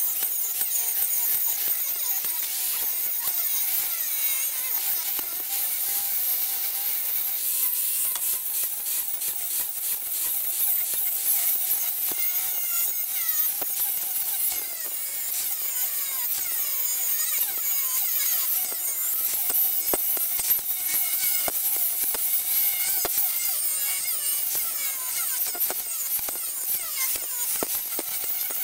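Angle grinder grinding the steel of a railroad track rail: a continuous high-pitched whine whose pitch wavers as the disc bites and eases.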